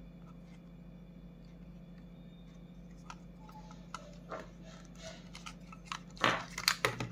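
Small hard-plastic clicks and knocks from an action camera being worked out of its snug plastic frame by hand. The clicks are sparse at first, then come thicker and louder from about six seconds in.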